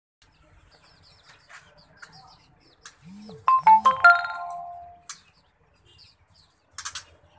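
Caged white-rumped shamas (murai batu) giving short, high chirps throughout. About three seconds in comes a loud, ringing, chime-like melodic sound whose notes die away over about a second.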